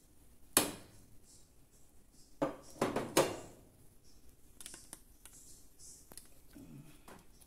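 Kitchen dishware clattering: one sharp knock about half a second in, then a quick cluster of ringing clinks near the middle as a plate with a fried egg is set down on the counter.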